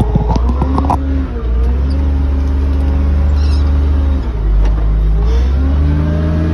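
Tractor engine running steadily under load as the loader bucket is driven into a dirt pile, with a clatter of knocks in the first second. The engine pitch dips briefly past the middle and then rises again near the end.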